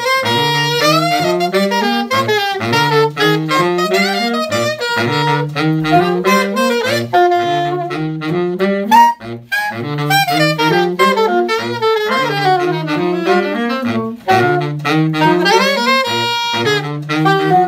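Alto saxophone on a Meyer New York M6 mouthpiece and baritone saxophone on a metal Yanagisawa 7 mouthpiece playing a jazz duet: the baritone repeats a low riff while the alto plays the line above it. There is a brief break about nine seconds in.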